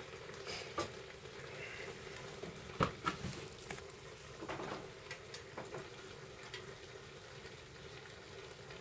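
Sukiyaki simmering in a pan, with a few sharp clicks and knocks, the loudest about three seconds in.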